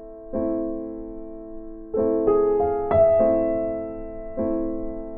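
Background music: soft piano chords, each struck and left to ring and fade, with a quicker run of several notes about two to three seconds in.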